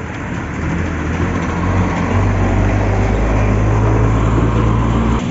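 A motor vehicle's engine running close by: a low, steady hum that grows louder over the first two seconds, holds, then cuts off abruptly near the end, over general street traffic noise.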